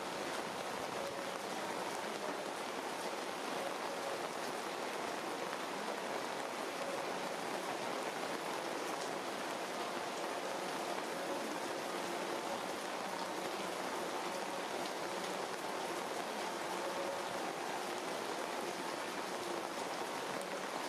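Steady rain falling on the leaves of a tree canopy.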